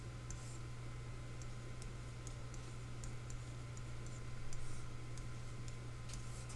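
Stylus tip tapping and clicking on a tablet screen during handwriting: irregular light clicks, several a second, over a steady low electrical hum.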